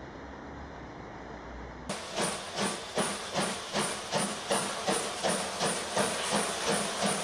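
Steam locomotive working steadily, its exhaust chuffing in even beats about two and a half times a second with steam hissing. The chuffing cuts in suddenly about two seconds in, after a steady rushing noise.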